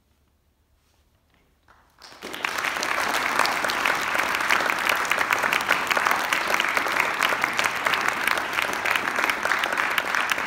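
Near silence for about two seconds, then a sudden start of audience applause: many people clapping, dense and steady.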